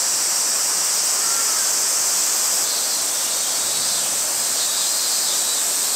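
Steady outdoor background hiss, strongest high in pitch, with a faint short chirp about a second in.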